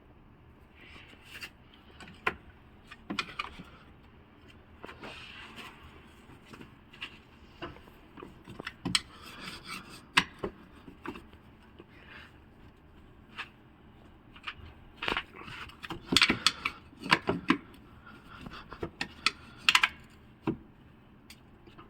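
Scattered, irregular clicks, knocks and scrapes of tools and parts being handled during car servicing, with the busiest run of sharp knocks in the last third.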